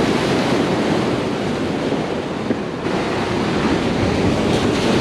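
Ocean surf breaking against the jetty's boulders, a steady wash, with wind rumbling on the microphone.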